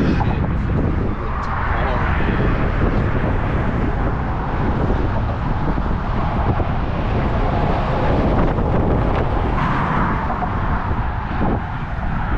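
Strong wind buffeting the microphone with a heavy rumble, mixed with highway traffic passing on the bridge, which swells twice as vehicles go by.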